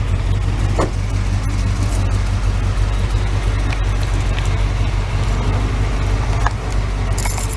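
Chevy S10 pickup's engine, fitted with new heads and a new cam, idling steadily with an even low hum. A brief jingle of keys near the end.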